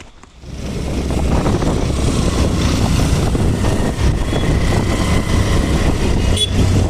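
Wind buffeting the microphone: a loud, rough rumble that rises in about half a second and holds steady.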